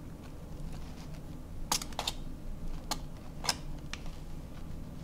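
A handful of light, sharp clicks and taps spread over a few seconds as a spoon and a cardboard box of cornstarch are handled over a stainless steel mixing bowl of ground pork.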